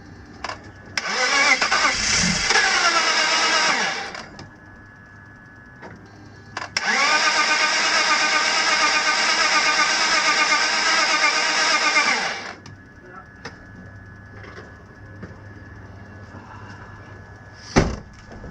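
BMW M54 straight-six being cranked by the starter in two attempts, about three seconds and then about five and a half seconds, trying to fire but not keeping running: the engine has lost compression and oil has been squirted into the cylinders to raise it, giving compression on only some cylinders. A single thump near the end.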